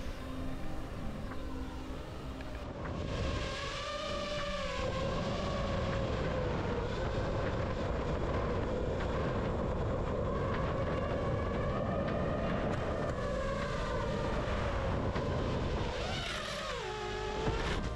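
FPV drone's motors and propellers whining in flight, the pitch rising and falling with the throttle. It drops sharply near the end as the throttle is pulled back.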